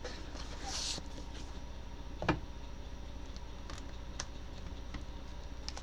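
Tarot cards being handled and laid down: a brief soft rustle under a second in, a sharp tap a little over two seconds in, then a few light ticks, over a faint steady low hum.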